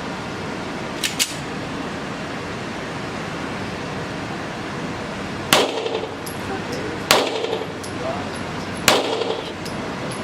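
Three handgun shots on an indoor range, about a second and a half to two seconds apart, each a sharp crack with a short echo, after two faint clicks about a second in.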